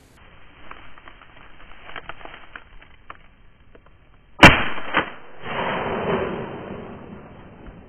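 A single shotgun shot fired at passing ducks about halfway through. It is followed by a softer click and a second or so of rushing noise.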